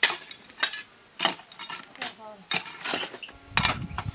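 Metal hand digging tools striking and scraping stony earth and gravel, with clinking hits about every half second.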